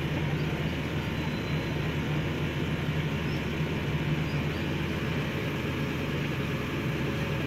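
Excavator's diesel engine running steadily, a low even drone.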